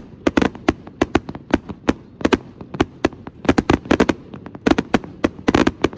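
Consumer fireworks going off in quick succession, a rapid irregular series of sharp bangs and cracks, several a second, with clusters of near-overlapping reports.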